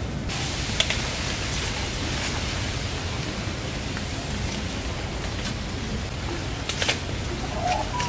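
Steady outdoor hiss, with a sharp click about a second in and a short burst of cracks about seven seconds in.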